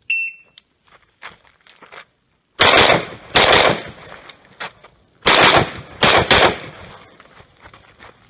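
A shot timer's start beep, a short high tone, followed after a couple of seconds by an AR-15 semi-automatic rifle firing fast strings of loud shots, mostly in quick pairs, each shot trailing off in echo.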